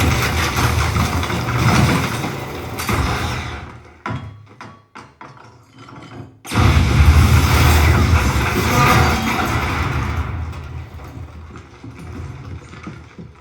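Action-film soundtrack with engine and vehicle noise that drops away about four seconds in. About six and a half seconds in comes a sudden loud hit with heavy bass, which fades slowly.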